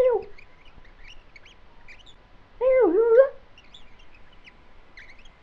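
A comic character's high-pitched gibberish voice says one short phrase about two and a half seconds in. Faint, scattered high chirps sound in the background.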